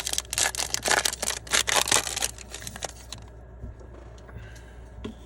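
Foil wrapper of a trading-card pack being torn open and crinkled for about three seconds, then quieter handling with a few faint clicks.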